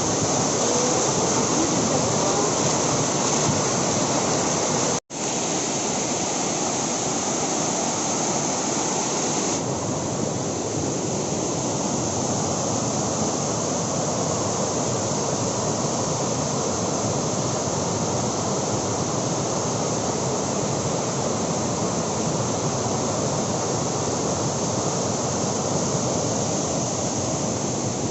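Loud, steady rush of a large waterfall, a heavy flow of water pouring down. It breaks off for an instant about five seconds in, then carries on unchanged.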